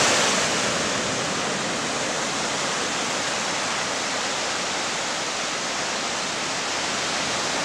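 Sea surf washing up a sandy beach, a steady rushing of small breaking waves.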